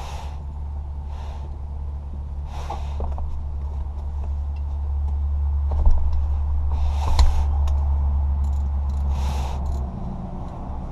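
Steady low engine rumble, a little louder in the second half, with several short hissing noises and a couple of sharp knocks over it.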